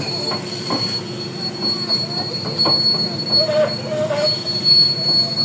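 Tracked excavator travelling: the engine runs under a steady high-pitched squeal from the undercarriage, with a wavering squeak about three and a half seconds in.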